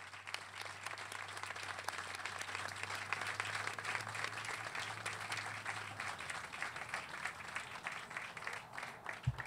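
Audience applauding, many hands clapping at once, the applause thinning out near the end.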